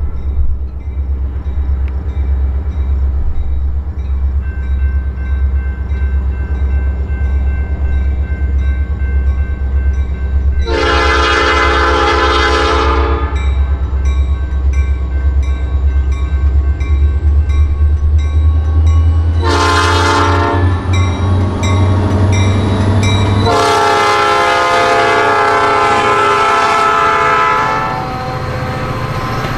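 Approaching diesel freight locomotives running with a steady low rumble, their air horn sounding a chord in a long blast, a short one and another long one: the end of the long-long-short-long grade-crossing signal. Near the end the locomotives have passed and the freight cars roll by with a clickety-clack.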